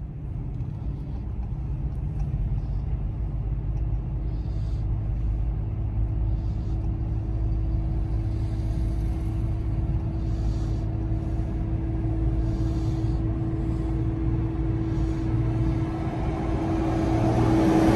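Steady engine and road rumble heard from inside a car's cabin as it drives, with a steady hum throughout. It grows louder near the end.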